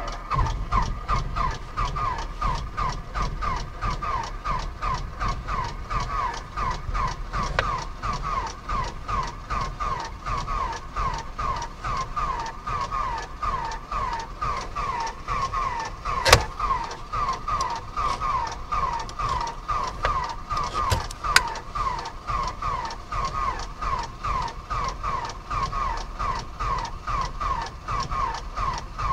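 Starter cranking the Beechcraft Bonanza's flat-six engine over and over without it catching, a steady, even, rhythmic churn of compression strokes, heard from inside the cockpit. One sharp click about sixteen seconds in.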